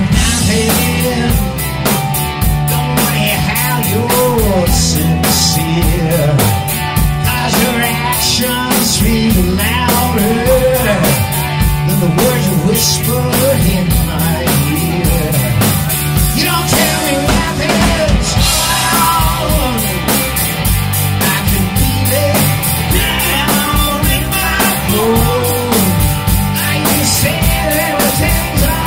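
Live rock band playing loudly: a full drum kit with steady cymbal strokes, electric guitars and bass.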